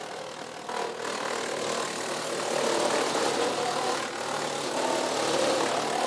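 WoodMaxx WM-8M PTO-driven 8-inch wood chipper chipping a 6–7 inch maple log: a dense grinding noise over the tractor engine. The log is near the machine's limit and slows its 200-pound flywheel a little under the load.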